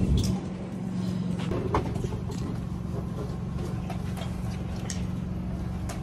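A steady low engine hum, like an idling motor, with a few faint clicks and knocks over it.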